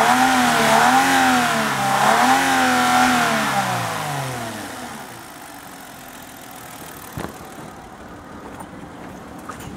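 Hyundai Equus 3.8-litre 24-valve G6DK V6 held at high revs, its pitch wavering up and down as the throttle is worked. After about three seconds the revs fall away and the engine note fades to a low background, with a single click about seven seconds in.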